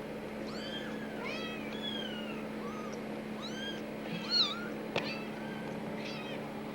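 Several young kittens mewing over and over, short high-pitched cries that often overlap, which the owner takes for the kittens expecting to be fed. A steady low hum runs underneath, and there is a single sharp click about five seconds in.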